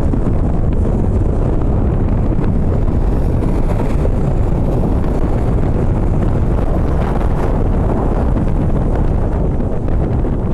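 Strong gusty wind buffeting the microphone: a loud, steady low rumble and roar.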